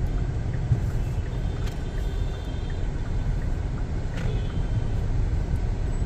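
Steady low rumble of a car's engine and tyres, heard from inside the cabin while creeping through city traffic.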